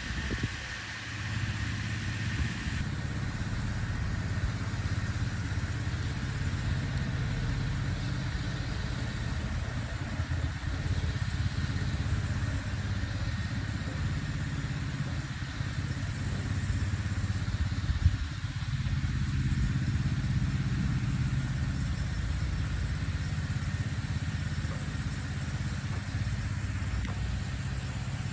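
Small engine of an irrigation water pump running steadily at constant speed and driving a sprinkler gun, with a faint hiss of spraying water. There is one sharp knock a little past halfway.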